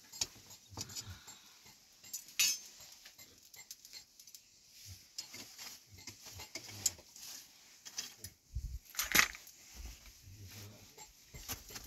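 Metal kebab skewers clinking and scraping against each other and the stones as they are turned over a charcoal fire, with scattered sharp clicks, the loudest about two and a half seconds in and again around nine seconds.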